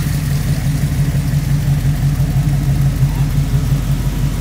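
Car engine running at idle: a steady, low, fast-pulsing engine note that holds level throughout.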